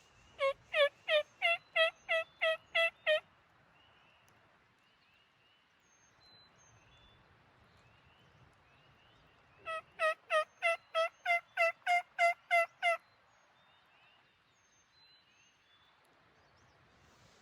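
Two series of turkey hen yelps from a hunter's turkey call: about ten evenly spaced yelps, then after several seconds' pause a second run of about a dozen.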